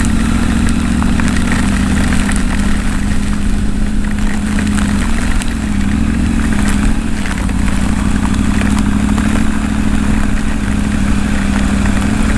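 Triumph Tiger 900's three-cylinder engine running at low speed as the motorcycle slows down, its note steady with a slight wobble about halfway through. Heavy rain and wind noise on the microphone, with scattered sharp clicks.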